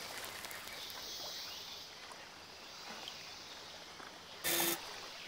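Faint outdoor ambience, a low even hiss, with a short burst of noise about four and a half seconds in.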